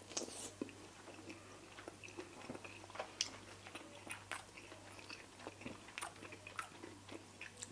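A person biting into and chewing a bacon-wrapped cocktail sausage (pig in a blanket): faint, irregular wet clicks and crunches of mouth and teeth.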